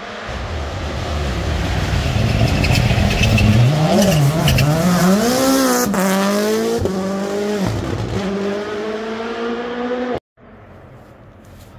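Toyota GR Yaris rally car passing at speed, its turbocharged four-cylinder engine dipping and rising as it goes by. It then climbs through several quick upshifts as it pulls away. The sound cuts off suddenly about ten seconds in, leaving only faint background noise.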